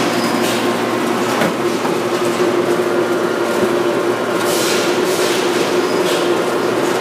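Steady din of the machinery on an aluminum roofing panel production line, with a constant hum and a few brief hissing swishes about two-thirds of the way in.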